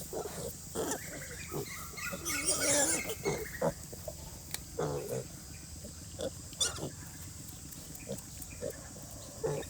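A sow and piglets grunting on and off, with short, higher squeals mixed in, loudest in a cluster about two to three seconds in.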